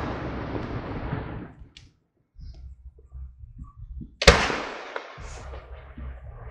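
Aerial fireworks shells bursting: the tail of one burst fades away over the first second and a half, then after a short lull a single sharp boom about four seconds in trails off into a fading echo.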